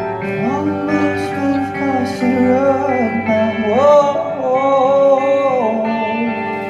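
Live male vocal over guitar, the singer holding long sustained notes that bend between pitches, with the voice dropping out a little before the end.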